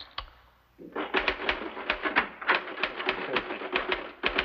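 Electric typewriter being typed on steadily, starting about a second in: quick key strikes, about five a second, over the faint hum of its motor.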